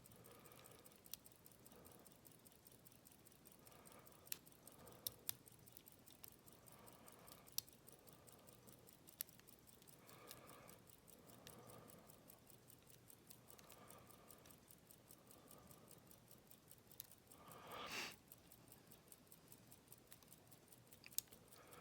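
Faint, scattered small metal clicks and scrapes of a lock pick and tension wrench working in the keyway of an Abus 72/40 padlock, with one brief louder scuffing sound near the end.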